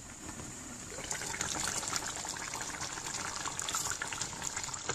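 Beef bhuna bubbling and crackling hard in a steel pot on the hob, a steady hiss of small pops that gets louder about a second in. The meat's own juices are boiling down in the last minutes of cooking.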